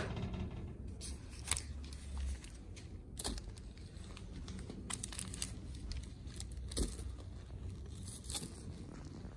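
Aluminium foil crinkling around foil-wrapped potatoes as they are handled, with scattered short crackles about every second and a half over a low rumble.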